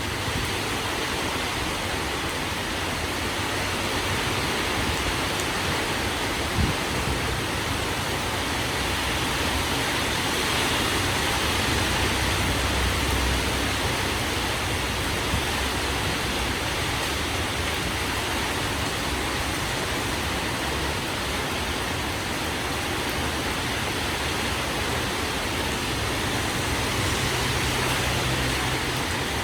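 Heavy rain pouring steadily in strong wind, a dense even hiss. One brief knock about seven seconds in.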